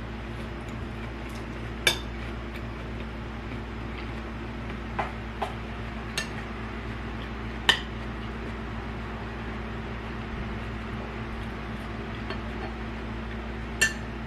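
Cutlery clinking against a plate or bowl while eating, about six separate sharp clinks spread out with pauses between them.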